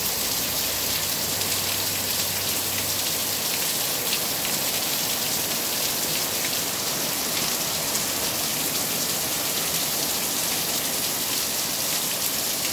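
Heavy rain pouring down steadily, a dense hiss with scattered faint ticks of individual drops.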